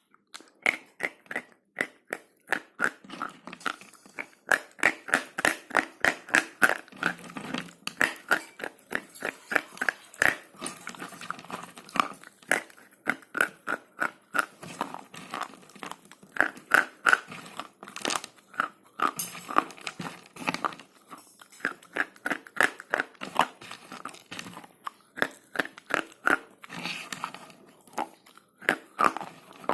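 Slate pencils being bitten and chewed close up: sharp, dry crunches in quick succession, several a second, with softer grinding between them.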